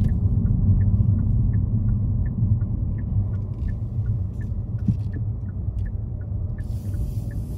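Steady low rumble of a car on the move, heard from inside the cabin, with a light regular ticking about three times a second. A brief hiss comes near the end.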